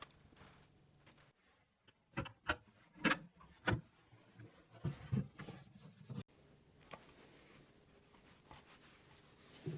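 A handful of sharp knocks and taps, about five in two seconds, followed by softer rubbing and scuffing, as of wooden pieces being handled and set against each other.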